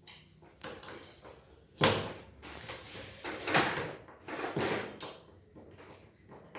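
A series of knocks, clatter and scraping of hard objects being handled, as during the removal of a split air conditioner's indoor unit; the sharpest knock comes about two seconds in, with further bursts of rattling and scraping a second or two later.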